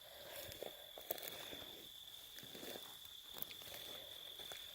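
Footsteps rustling and crunching through dry brush and debris, in short irregular scuffs. Under them runs a steady, high-pitched trill of night insects.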